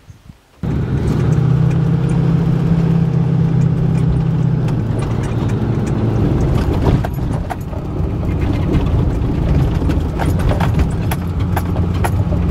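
Pickup truck driving, heard from inside the cab: a steady engine and road drone that starts abruptly a little after the start. From about halfway on, frequent clicks and knocks join in as it runs along a rough dirt track.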